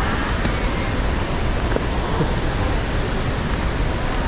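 Steady rush of a large waterfall in heavy flow, swollen by rain.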